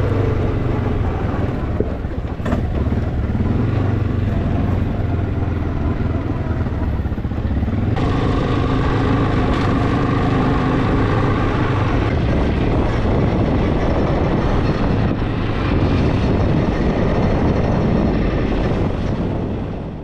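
Quad bike (ATV) engine running steadily while riding, its sound changing abruptly about eight seconds in and fading out at the very end.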